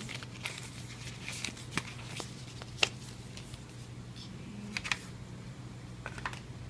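Packaging being handled by hand during an unboxing: scattered light clicks, taps and rustles of cardboard and plastic, with one sharper click about three seconds in.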